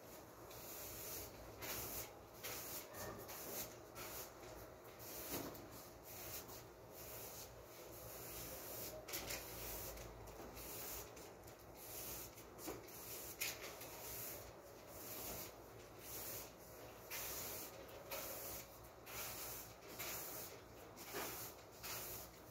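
Broom sweeping dust, with repeated swishing strokes about one or two a second.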